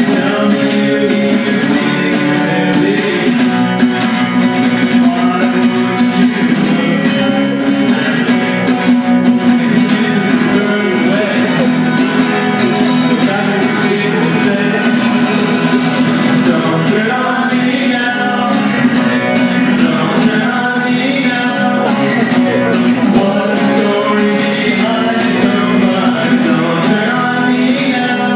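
Live song from a duo: two acoustic guitars played together under a male lead vocal.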